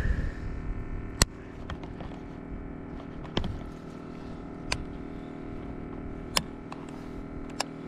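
Small two-stroke outboard motor, a Hidea 5 hp, idling with a steady low hum. Five sharp clicks sound over it at uneven spacing; the loudest comes about a second in.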